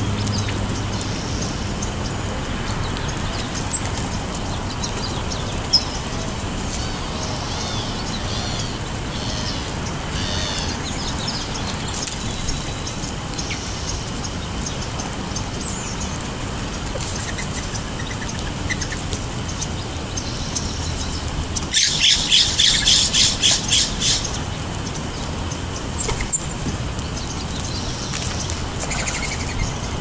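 Birds chirping faintly now and then over steady outdoor background noise, then a loud harsh bird call of about ten rapid notes, some four a second, lasting a little over two seconds about two-thirds of the way through.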